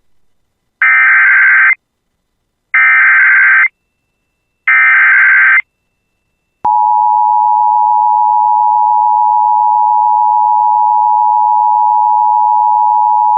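Emergency Alert System header: three short bursts of buzzy digital data tones about two seconds apart, then the long steady attention tone that signals an emergency warning is about to be read.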